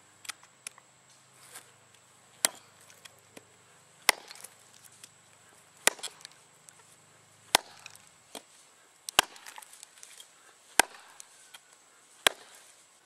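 Norlund hatchet chopping wood, seven sharp strikes about every second and a half with fainter knocks between, cleaning up a rough cut.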